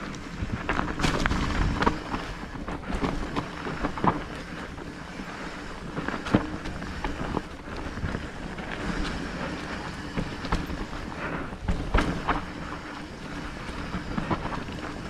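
Wind buffeting the camera microphone while an electric mountain bike rides a rough trail, with frequent sharp knocks and rattles as it goes over the ground.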